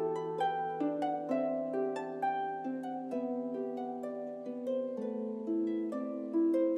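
Harp music: a steady, flowing run of plucked notes ringing over a held low note.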